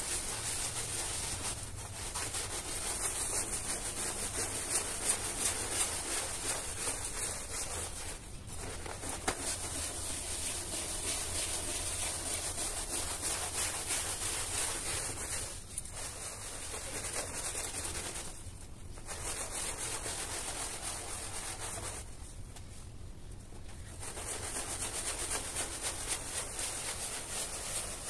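Long-handled stiff-bristled scrub brush scrubbing a wet, foam-covered carpet: steady scrubbing strokes, with a few short breaks and a longer pause about two-thirds of the way through.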